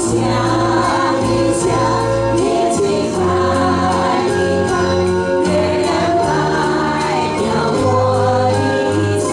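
Amateur group choir singing a Chinese song together over instrumental accompaniment with a held bass line.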